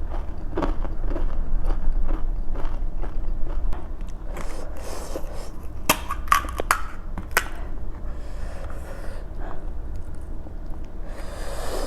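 Close-miked chewing and crunching of panipuri: crisp puris cracking and being chewed with the spicy jhol, with a few sharp crunches between about six and seven and a half seconds in.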